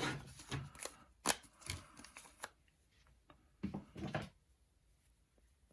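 Handling of a screen protector kit's packaging and pieces: a run of light clicks, taps and rustles as cardboard, paper and small plastic items are picked up and set down, busiest in the first half and again about four seconds in.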